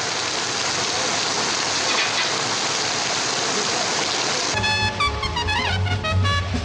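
Steady rain, a dense even hiss. About four and a half seconds in it gives way to a jazz band, brass lines sliding in pitch over a low bass.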